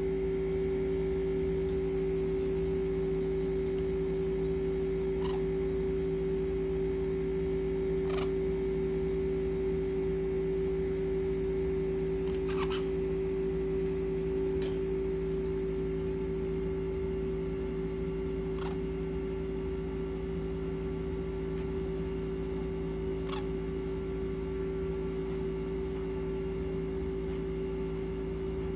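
A steady, even hum made of several fixed tones, with a few faint, very short high-pitched sounds scattered through it.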